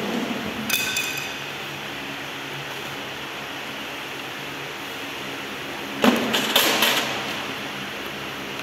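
Adhesive tape being pulled off its roll and torn while binding a cord: a short squeak about a second in, then a loud burst of ripping and crinkling around six seconds in, over a steady low hum.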